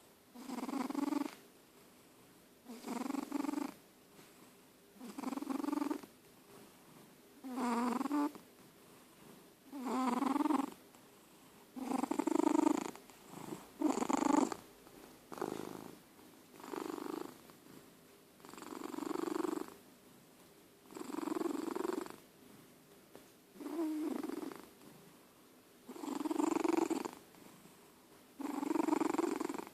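Old domestic cat snoring, one snore on each breath about every two seconds, with short quiet gaps between them.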